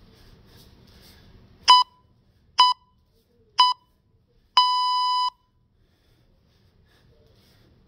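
Electronic workout timer giving its countdown signal: three short beeps about a second apart, then one longer beep of under a second, all at the same pitch.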